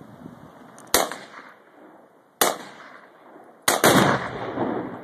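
Three single AK-47 rifle shots about a second and a half apart. The third is followed at once by a heavier blast with a long rumbling tail: the 1 lb Tannerite target detonating when hit.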